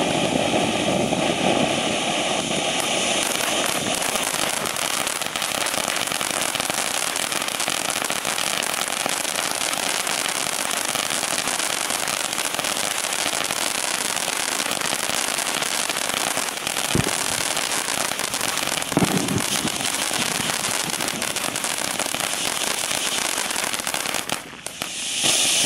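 Firework fountain burning, spraying sparks with a continuous hiss and dense crackling. It sounds fuller at first, then thins to crackle, with two sharper pops past the middle.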